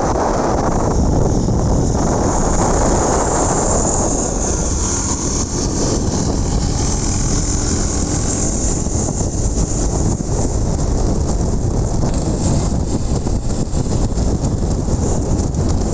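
Small generator engine on a motor-style bicycle running steadily, with wind rumble on the microphone.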